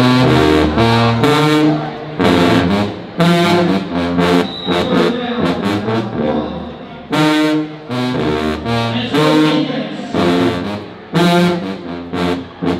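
A marching band's brass section, sousaphones included, playing a fanfare: loud, punchy chords in short phrases, broken by brief gaps.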